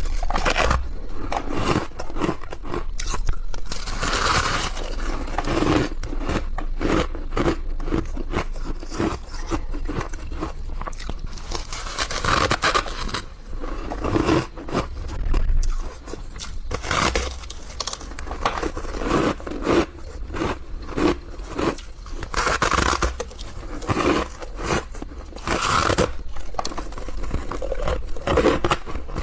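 A person biting and chewing soft, powdery snow-like ice: a steady run of crisp crunches, with louder bites every few seconds.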